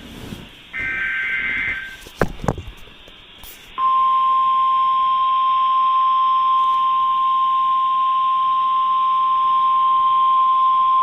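Emergency Alert System signals. First a raspy two-tone SAME header data burst lasting about a second, then a few clicks, then from about four seconds in the steady single-pitch NOAA Weather Radio warning alarm tone (1050 Hz), held loud and unbroken.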